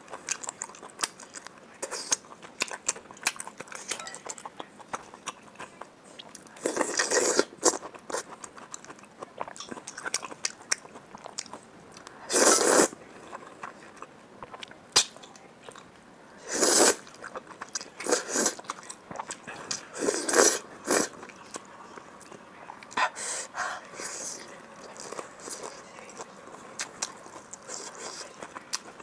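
Close-miked eating of saucy spicy fire-chicken instant noodles: steady wet chewing and lip-smacking clicks, broken by about half a dozen loud slurps as mouthfuls of noodles are sucked in.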